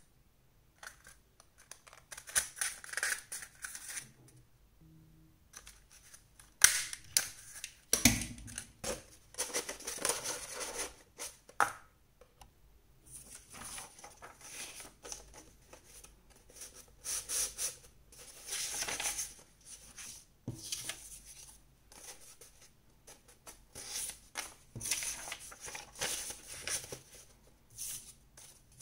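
Stiff coloured paper rustling and crinkling in irregular bursts as hands fold and shape it into a cone, with a few sharper knocks against the table.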